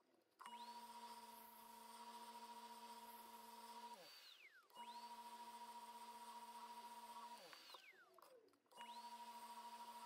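Rockler mini Excelsior wood lathe motor running with a steady hum and whine. Twice it winds down and then spins back up.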